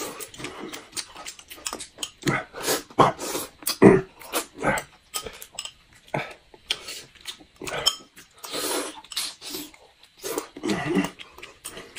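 Close-up eating noises: sucking and slurping at boiled crayfish shells, with chewing, in short irregular bursts.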